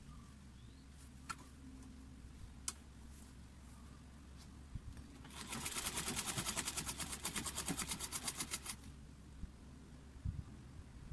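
Sewing machine stitching through thick layered fabric: one quick, even run of about ten stitches a second, lasting about three and a half seconds, starting about five seconds in.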